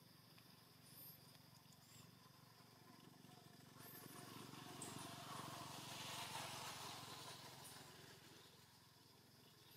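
Faint outdoor ambience: a low hum that swells to its loudest about six seconds in and then fades, with a few faint, brief high chirps.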